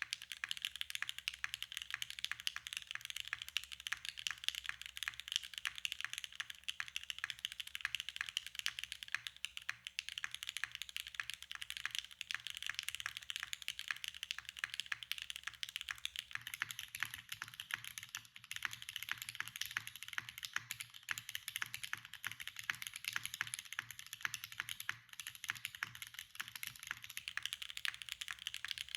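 Continuous fast typing on a custom mechanical keyboard with hand-lubed Gateron Khonsu linear switches (full POM housings, rail bottom-out) on an aluminium plate, with JTK keycaps: a dense stream of bright key clacks. From about halfway through, the keystrokes carry more low-end weight.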